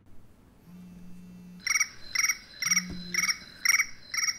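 Mobile phone ringing: a short, high, trilling ringtone repeated about twice a second, starting a little under two seconds in. A low hum sounds twice, about a second in and again near three seconds.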